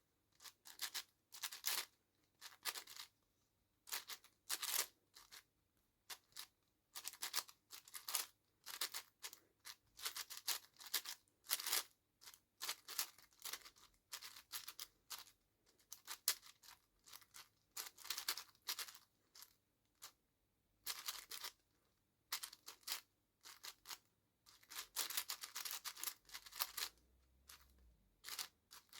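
Plastic 7x7 speedcube being turned fast during a solve: quick bursts of clicking, scraping layer turns, broken by short pauses.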